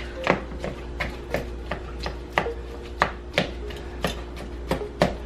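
A big spoon mashing canned pink salmon: a run of irregular knocks and scrapes, roughly two a second.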